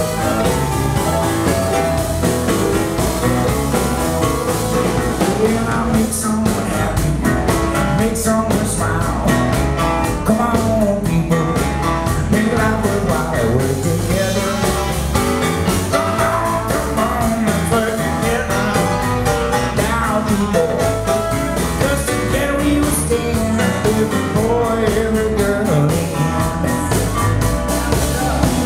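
Live blues-rock band playing with drums, electric guitar, keyboards and harmonica, with a man singing.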